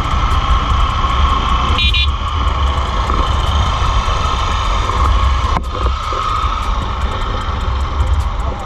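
Vehicle on the move: steady engine and road noise with a heavy low rumble, and a short high beep about two seconds in.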